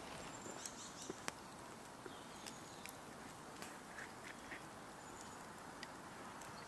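Faint, scattered crackles and ticks from campfire coals, with a few short, faint bird calls.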